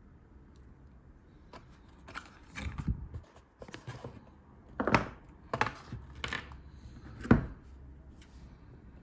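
Phone packaging and accessories being handled: a run of short knocks, clicks and rustles, the sharpest about five seconds in and again about seven seconds in.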